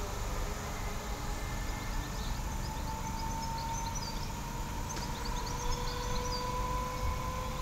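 Class 230 hybrid train running away into the distance: a steady low rumble with a faint whine that rises slowly in pitch. Birds chirp briefly in the middle.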